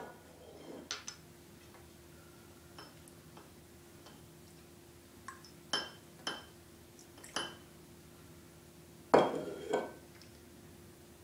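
Green glass bottle and drinking glass being handled on a table: a scatter of light glass clinks and taps with a short ringing tone, the loudest cluster of clinks about nine seconds in.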